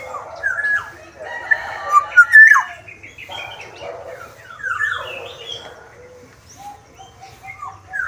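A caged black-naped oriole (Sumbawa kepodang) calling: several phrases of rasping notes mixed with short sliding whistles, the loudest a little over two seconds in. The calls thin out near the end into a quieter, lower held note.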